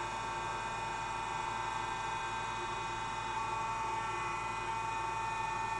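Hydraulic drive of a compact core drilling rig running steadily, its load-sensing variable displacement pump sitting at standby with no flow. A steady whine made of several even tones, one standing out above the rest, with no change in pitch.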